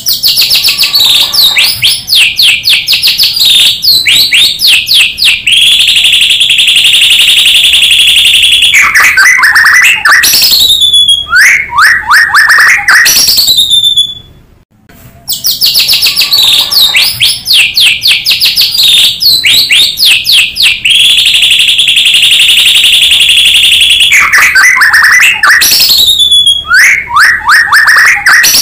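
White-rumped shama (murai batu) song played loud as a looped lure recording. Each phrase is a quick run of sharp falling notes, then a long held buzzing trill, then lower falling whistles. The whole phrase repeats about halfway through, after a short break.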